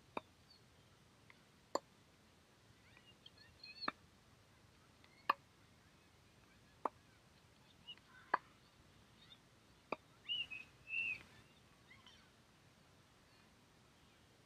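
Tennis ball being hit back and forth on a hard court: sharp pops of ball on racket strings and court every second and a half or so. Birds call briefly a few times, most loudly about two-thirds of the way through.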